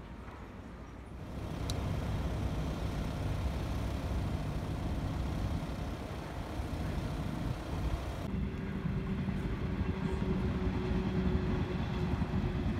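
Steady low rumble of a vehicle engine idling. About eight seconds in, a steady droning hum joins it.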